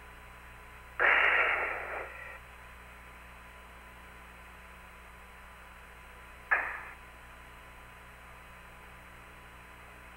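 Steady hiss and hum of the Apollo 16 air-to-ground radio link, with no voices on it. About a second in comes a burst of static lasting about a second, and a shorter, fading burst of static follows a little past the middle.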